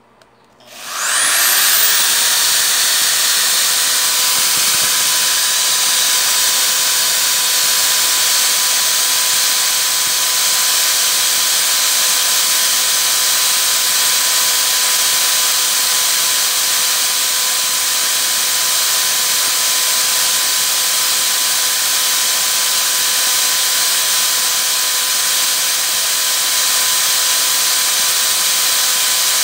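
Vonder FTV 595 500 W corded electric drill switched on about a second in, spinning up within a second and then running steadily at full speed with a steady whine, free-running with no bit in work. It is powered from an 800 W sine-wave inverter, which carries the load without cutting out.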